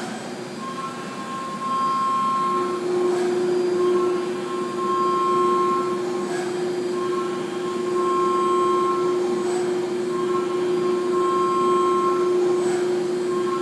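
DMG MORI DMU 105 monoBLOCK five-axis CNC milling machine running with a steady hum and a held tone. Higher whining tones switch on and off in a repeating cycle, with a faint tick about every three seconds.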